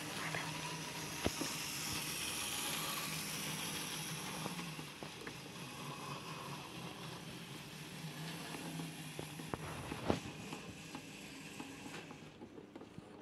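Model train running on the layout's track: a steady electric-motor hum with wheel and track noise, louder at first and then dropping, with a couple of sharp clicks.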